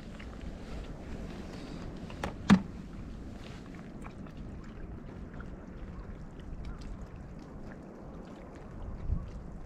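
Steady low wind and water noise on a moored fishing raft, with two sharp knocks close together about two and a half seconds in and a duller thump near the end.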